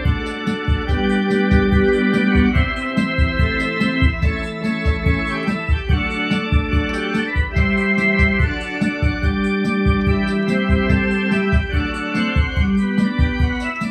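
Portable electronic keyboard playing a hymn in held, sustained chords over a steady beat.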